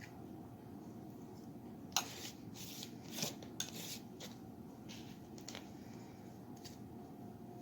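A utensil clicking and scraping as it works sticky peanut-butter suet mixture onto a pine cone: one sharp click about two seconds in, then a couple of seconds of short scrapes and rubs, with a few light ticks later.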